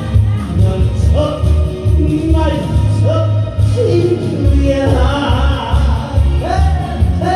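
Music: a song with a steady, pulsing bass beat under long held melody notes that slide from pitch to pitch.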